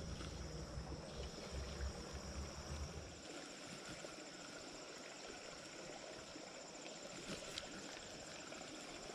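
Faint creekside ambience: insects chirring in a steady high drone over the soft wash of moving creek water. A low rumble runs under it for the first three seconds, then stops.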